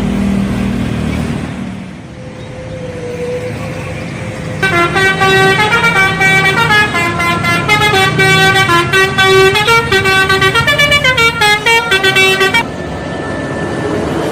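Indonesian bus telolet horn, a multi-trumpet musical air horn, playing a fast tune of quickly changing notes for about eight seconds. It starts about a third of the way in and cuts off sharply, over vehicle engine and road noise.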